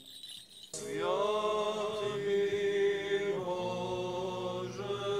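Choir singing unaccompanied Orthodox liturgical chant. After a brief pause the voices come in, just under a second in, on a long held note and sing on in slow, sustained phrases.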